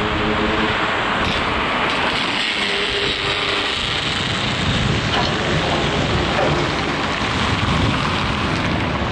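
Construction site ambience: a steady rumbling noise of machinery and traffic, with a faint engine hum near the start and again about three seconds in.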